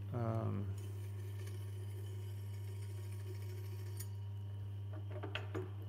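Tormek T-8 wet sharpening machine running unloaded: a steady low motor hum, with a light click about four seconds in.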